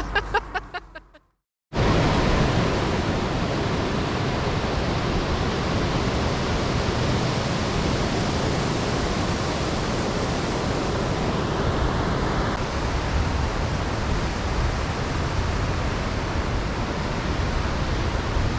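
Shower spraying water in a steady, even rush that starts abruptly a little under two seconds in.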